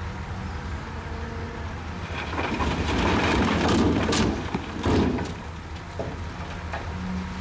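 Bulldozer's diesel engine running steadily, with a louder rumbling, crunching noise of rock being pushed from about two to five seconds in.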